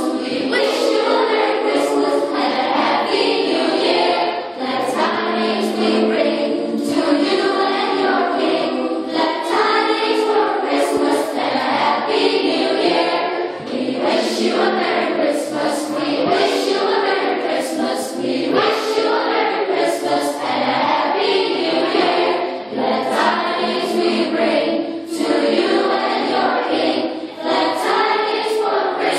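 Children's choir singing a song together, the singing continuous with only brief breaths between phrases.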